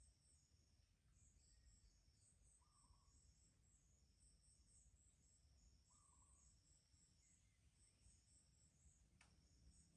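Near silence with faint, high-pitched insect chirping repeating steadily throughout, and a single click near the end.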